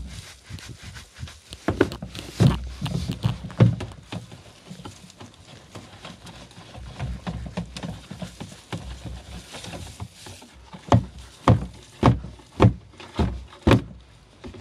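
Grass clippings being tipped and shaken out of a lawnmower's plastic grass box into a plastic wheelie bin, heard as rustling and dull thumps. Near the end come about six knocks, roughly two a second, as the box is knocked against the bin to free the last clippings.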